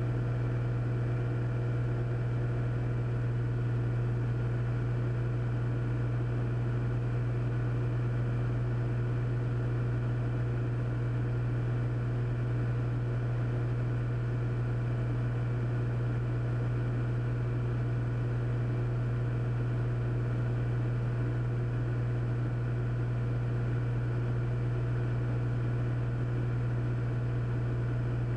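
Cessna 400's six-cylinder turbocharged piston engine and propeller running steadily in cruise-descent, a constant low hum with several steady higher tones above it and no change in pitch.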